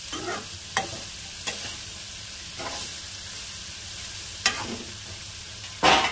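Sliced spine gourd frying in oil in a metal kadai with a steady sizzle, stirred with a steel spatula that scrapes the pan about six times, the loudest scrape near the end.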